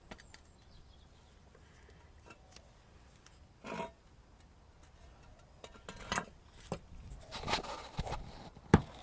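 Metal tools and shock absorber assembly parts being handled on a bench: a brief scrape, then a run of clinks and knocks with one sharp knock near the end.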